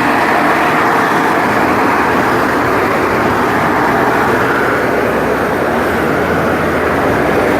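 Loud, steady noise on a city street, of unknown source, holding an even level with no breaks or changes.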